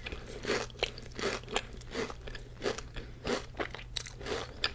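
A person chewing a crunchy chocolate cookie, a steady run of crisp crunches about three a second.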